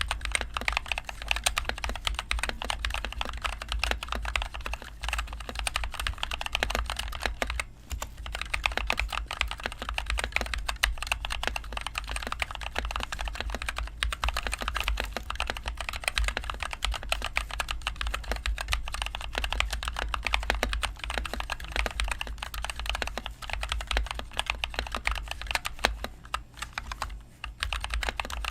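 Continuous fast typing on a NovelKeys NK65 Entry Edition mechanical keyboard with linear NovelKeys Cream switches and HyperX Pudding keycaps, a dense stream of key clacks with brief pauses around a quarter and halfway through and near the end. A steady low hum sits underneath.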